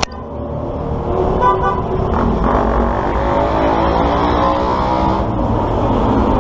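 Road traffic: vehicle engines running and changing pitch, with a short horn toot about a second and a half in.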